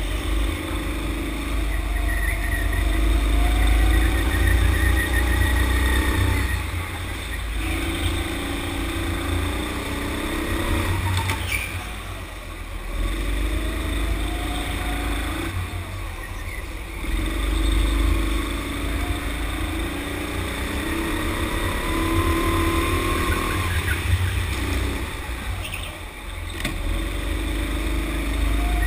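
Sodi go-kart engine heard from the driver's seat, its pitch climbing on the straights and dropping off several times as the driver lifts for corners, over a heavy low rumble.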